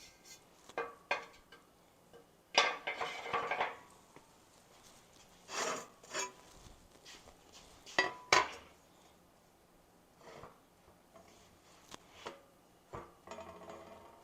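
Steel parts and tools being handled and set down: irregular metal clanks and rattles, with a longer clatter about three seconds in and a couple of strikes that ring briefly.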